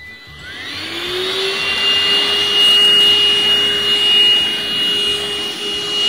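Deerma cordless handheld vacuum cleaner switched on: its motor spins up with a rising whine over about a second and a half, then runs steadily with a high whine, its nozzle drawing dust from sofa upholstery.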